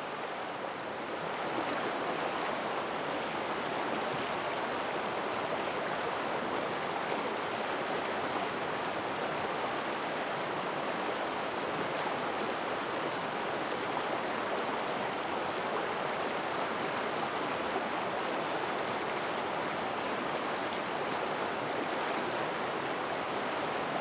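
Shallow river water rushing steadily over rocks in a riffle, growing a little louder about a second and a half in.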